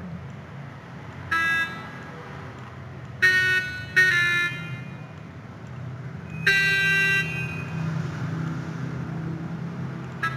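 Synthesized tenor saxophone (FL Studio's FLS Tenor Sax preset) sounding short single notes as each note is placed in the piano roll: four brief tones a second or two apart, the last one held longest, and the start of another just at the end. A steady low hum runs underneath.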